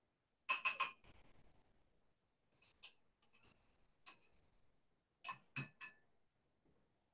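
Light metallic clinks of a utensil against a mixing bowl, in quick groups of two or three with a short ring: hand-stirring a lemon-tahini dressing and tapping the utensil on the bowl.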